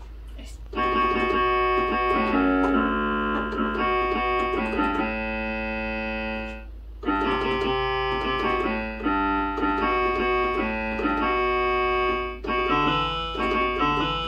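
Portable electronic keyboard played with both hands: held chords and melody notes, starting about a second in, with a short break just past the middle before the playing resumes.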